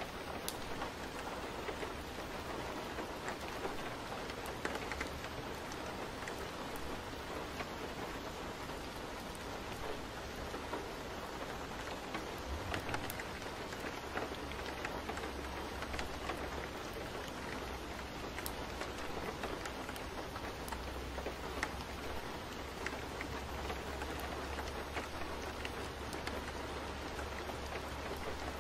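Steady rain falling: an even hiss with scattered drop ticks. A low rumble underneath comes in about halfway through.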